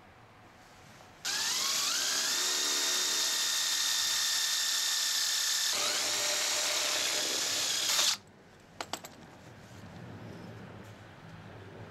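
Cordless drill boring a hole through a steel angle. It spins up with a rising whine about a second in, runs steadily with a shift in pitch partway, then cuts off suddenly. A few light clicks follow.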